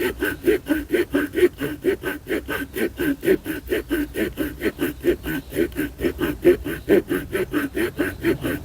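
Saw blade of a Victorinox RangerGrip pocket knife sawing back and forth through a wooden log of about 5 to 7 cm, a steady quick rhythm of rasping strokes, about four a second. The blade cuts on the pull stroke.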